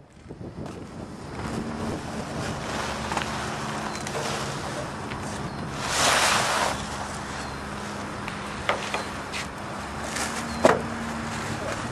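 A steady low motor hum, with a gust of wind noise on the microphone about six seconds in and a few sharp knocks near the end, the last one the loudest.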